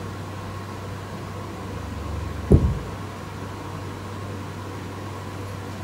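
Steady low electrical hum and hiss, with one dull thump about halfway through.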